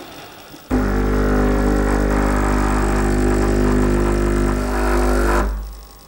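Sage/Breville Bambino Plus espresso machine's vibratory pump running against a blanking disc during a backflush shot with cleaning solution: a steady buzzing hum that starts about a second in and stops near the end.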